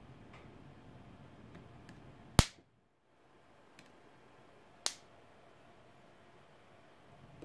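A loud, sharp snap about two and a half seconds in as a screwdriver blade shorts the terminals of a capacitor charged to about 70 V by a boost converter, dumping the charge in a spark. A second, smaller snap follows about two and a half seconds later.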